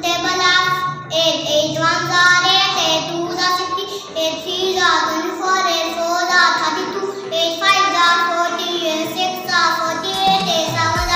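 A young boy chanting multiplication tables in a sing-song voice, phrase after phrase without a break.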